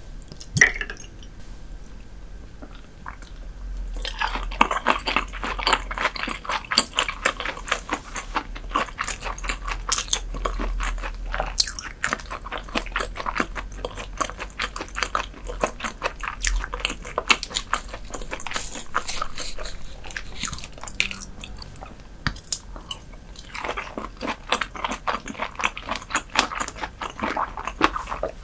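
Close-miked chewing of raw herring, many quick wet clicks and crunches in a steady run. It eases off briefly about three quarters of the way through, then picks up again.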